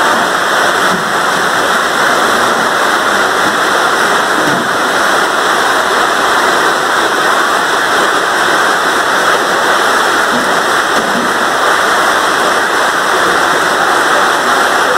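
Floodwater rushing along a street in heavy rain: a loud, steady hiss of water.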